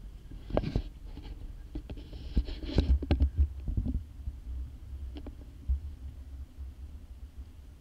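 Wind rumbling on the camera microphone on an open skiff, with scattered light knocks and a few short hissing bursts.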